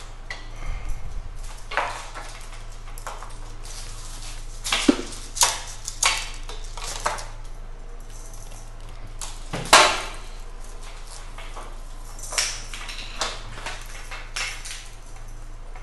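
Scattered clicks, knocks and rattles of a day-and-night (zebra) roller blind and its hard fittings being handled, with one sharper knock about ten seconds in. A steady low hum runs underneath.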